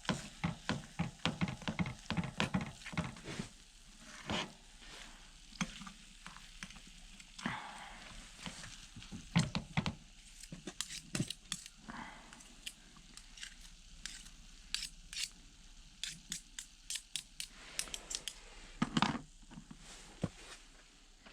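Crushed leftover lasagna sizzling in a pan set over a heater, with frequent short scrapes and clicks of a utensil stirring it against the pan.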